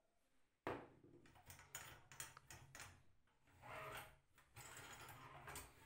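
Small metal parts of a handmade toy tricycle clicking and knocking under the hands as a wheel and nuts are worked off the axle: one sharp knock a little way in, then a run of light clicks with a short rubbing sound near the middle.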